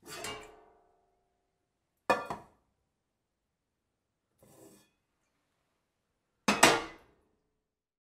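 Empty metal teapot set down hard on a surface four times, each a clanking knock with a short metallic ring. The second lands as a quick double hit, the third is faint, and the fourth is the loudest.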